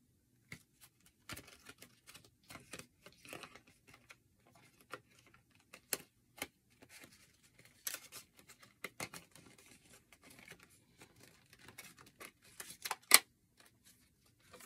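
Hands handling packaged craft supplies: scattered light rustles of plastic packaging, taps and small clicks, with one sharper click near the end.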